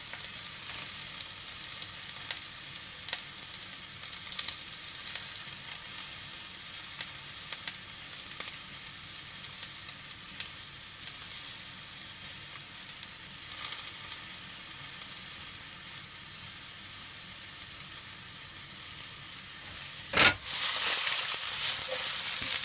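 Sliced asparagus and king oyster mushrooms sizzling in oil in a frying pan, a steady high hiss with faint small pops. About twenty seconds in the pan is tossed, and the sizzling suddenly grows louder.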